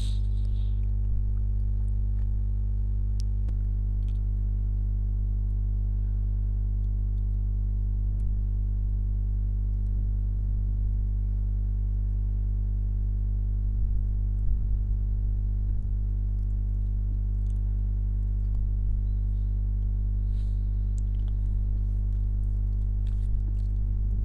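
A steady low hum with a ladder of even overtones, holding unchanged throughout, with a few faint clicks.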